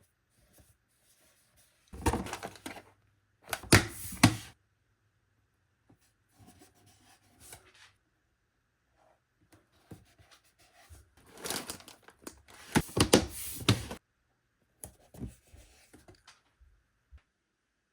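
Household items being handled: rustling of packaging and knocks and clatters as things are picked up and set down. The sounds come in two louder spells of handling with quieter fiddling between.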